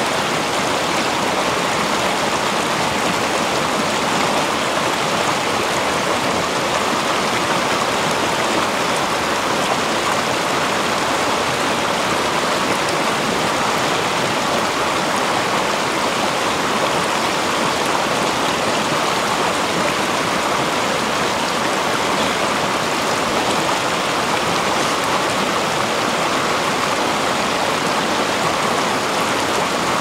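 Mountain stream rushing steadily over rocks.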